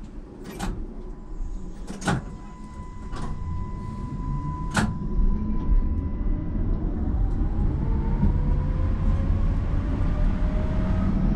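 Budapest tram at a stop: several sharp clacks and a steady warning tone as the doors close. Then the electric traction motors whine, rising slowly in pitch and growing louder as the tram pulls away.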